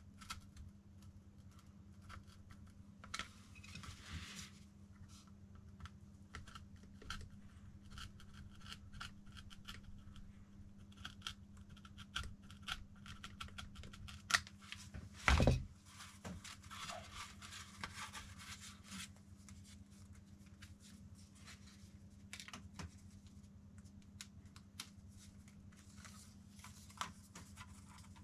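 A vinyl windshield sticker sheet being cut by hand on cardboard: a long run of small scratchy cutting strokes and clicks, with one louder knock about 15 seconds in.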